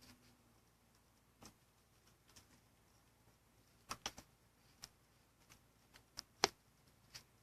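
Faint, scattered clicks and taps, seven or eight at irregular intervals, with a small cluster about four seconds in and the sharpest one about six and a half seconds in.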